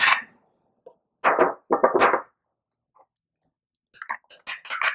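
White plastic spoon scraping and knocking against a small ceramic ramekin while scooping chorizo out: a few short dull knocks a little over a second in, then light clicks near the end.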